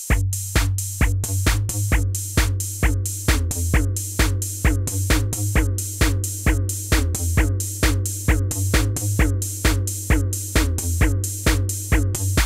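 Electronic background music with a fast, steady drum-machine beat over a deep sustained bass, and short falling synth notes.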